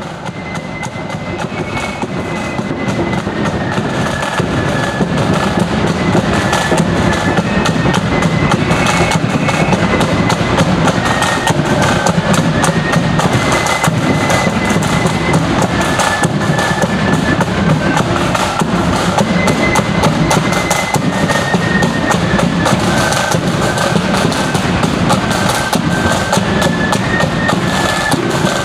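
Marching flute band playing: a high flute melody over rapid side-drum rolls and bass drum beats. It grows louder over the first few seconds as the band approaches.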